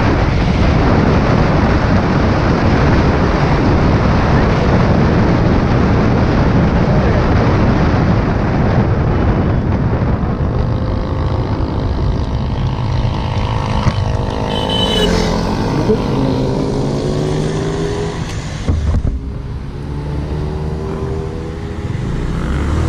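Heavy wind rush over the microphone of a Honda Click 125i scooter at top speed, easing after about ten seconds as the bike slows. Under it the single-cylinder engine becomes audible, its pitch sliding up and down, with a short drop in level near the end.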